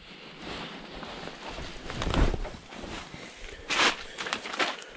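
Clothing and gear rustling as a person moves about, with a heavy low thump about two seconds in and a couple of sharp rustles near the end.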